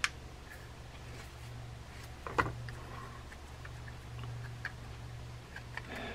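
Sharp little clicks and taps of a spinning reel's body and internal parts being handled and turned in the hands, the loudest about two and a half seconds in. A steady low hum runs underneath.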